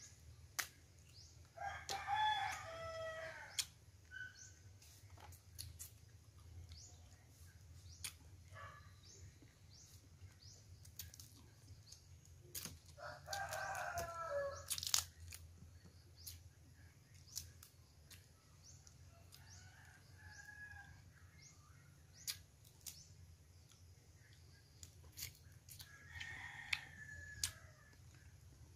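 A rooster crowing: two loud crows about two and thirteen seconds in, with fainter crows later. Between the crows are sharp clicks and cracks of crab shells being broken apart by hand.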